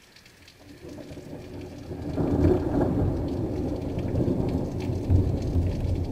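Thunder from a nearby lightning strike rolling in: a rumble builds from about a second in and becomes a loud, sustained, uneven roll from about two seconds in. Steady rain falls throughout.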